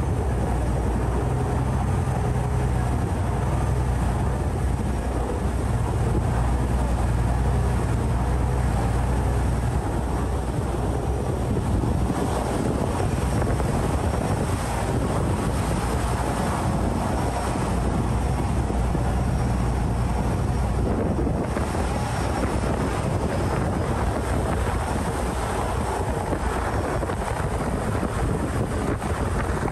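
Saen Saep Canal passenger boat's diesel engine running steadily under way, with water rushing past the hull and wind buffeting the microphone. The low engine hum is strongest for the first ten seconds or so, then sinks somewhat under the rushing noise.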